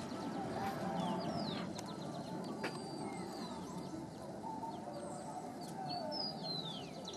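Birds chirping and calling: many short, falling whistled notes, over a steady low background noise.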